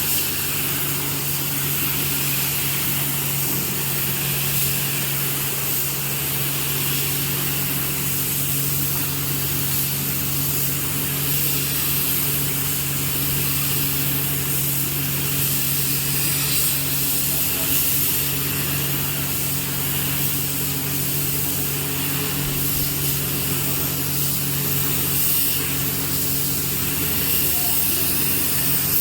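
Electric woodworking machine running steadily, its motor giving an even hum with a constant hiss over it and no change in load.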